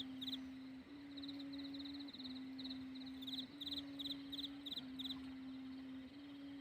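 Rattan-strung sanu hummer on a Thai kite droning in the wind: one low steady hum whose pitch shifts slightly every second or so as the wind changes. Quick high chirps come in short repeated groups behind it.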